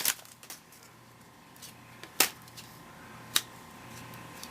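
Baseball trading cards being handled between packs: faint rustling with two sharp clicks, about two seconds in and again about a second later, over a low steady hum.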